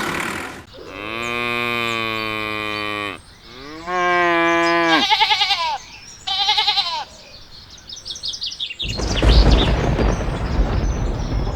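Cattle mooing: one long, slightly falling moo, then a second moo that rises and falls, followed by two shorter wavering calls. About nine seconds in, a loud rough rumbling noise takes over.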